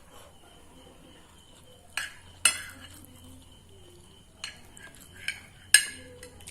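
Metal cutlery clinking and scraping against a plate of noodles while eating: about five sharp clinks at uneven intervals, the loudest about two and a half seconds in and near the end.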